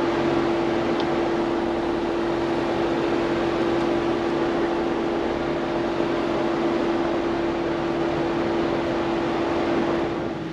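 Ford Bronco running on an off-road trail: a steady rushing noise carrying a constant whine, easing slightly near the end.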